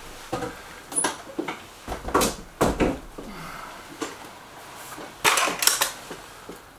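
Air rifle being handled between shots: a series of separate clicks and knocks, the loudest pair about five seconds in.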